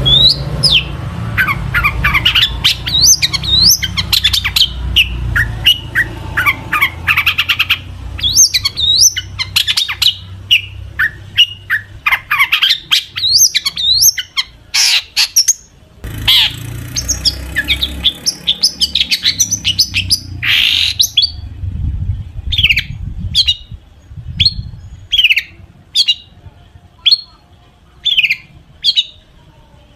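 Long-tailed shrike singing a fast, varied song full of mimicked phrases of other birds, with rapid trills and rising and falling notes. After about twenty seconds it changes to sharp single falling calls, about one a second.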